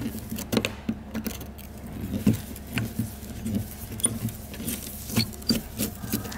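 Screwdriver tip scraping and prying against a rivet on the metal base of an old electric fan's push-button switch: irregular sharp metallic clicks and scrapes, about two a second.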